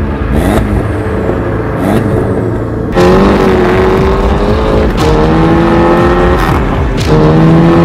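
VW Scirocco with an aftermarket Fi Exhaust system accelerating hard. The engine note climbs steadily in pitch through repeated pulls, dropping back and restarting with each gear change: a quieter pull early on, then three loud pulls in the second half.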